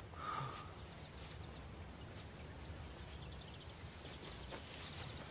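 Quiet outdoor garden ambience with faint, quick bird chirps.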